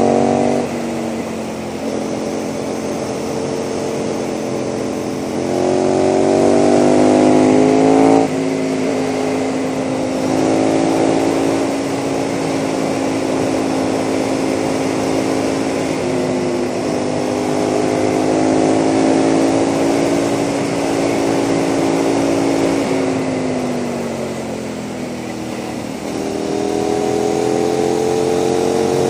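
KTM 990 SMR supermoto's V-twin engine with a Leo Vince exhaust, heard on board with wind noise. It revs up and drops sharply on an upshift about eight seconds in, runs steady at cruising speed, eases off around twenty-three seconds in, then pulls up again near the end.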